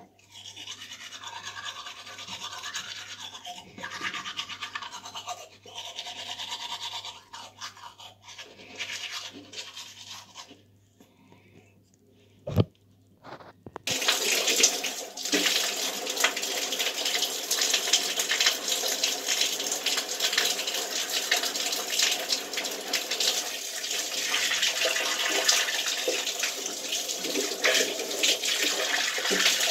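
Manual toothbrush scrubbing teeth in uneven stop-start strokes for about ten seconds. After a pause and a single click, water starts about fourteen seconds in, pouring steadily from a bare shower pipe with its head removed.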